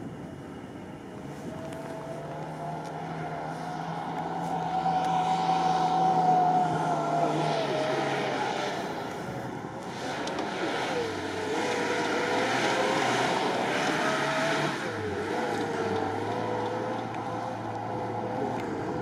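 Off-road car's engine revving hard under load on a muddy course, the revs and loudness climbing to a peak about six seconds in, dropping briefly near ten seconds, then rising and wavering again.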